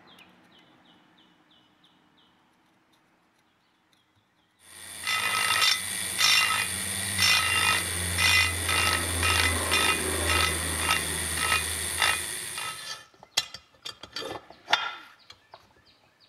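Flex-shaft rotary tool spinning a carbide burr, starting about four and a half seconds in and running for about eight seconds while it grinds the engine case, the cut pulsing about twice a second with each stroke of the burr. Faint light ticks come before it, and a few sharp clicks and knocks follow once it stops.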